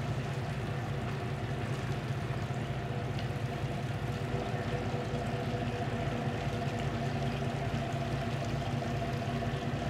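Boat engine running steadily with a low, even throb of about two to three pulses a second, over the wash of water.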